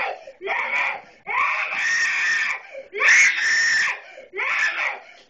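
A three-year-old girl screaming in a temper tantrum: four screams with short breaths between, the two in the middle long and the loudest about three seconds in.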